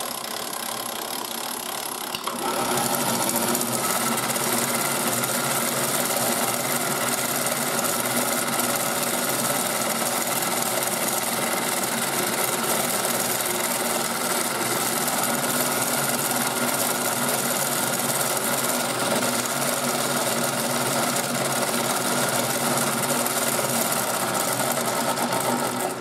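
Small electric motor of a 1980s Nikko America Mighty Washer toy washing machine running its fast spin (dry) cycle, the drum spinning very fast. It is a steady whirr that steps up in loudness about two seconds in, with a steady whine over it.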